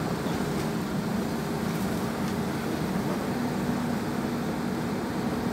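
Volvo crawler excavator's diesel engine running steadily during demolition, a constant hum with a few faint knocks from the rubble.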